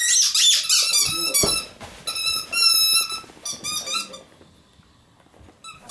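A squeaky toy ball chewed by an Italian Spinone, giving quick runs of high-pitched squeaks in several bursts, with pauses between them.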